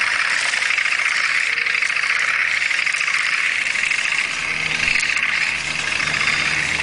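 Radio-controlled airsoft toy tank driving, a steady whirring mechanical noise that starts just before and runs on without a break.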